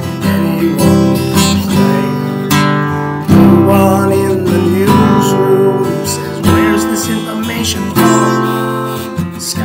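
Acoustic guitar strummed in a steady rhythm, the chords changing every second or so.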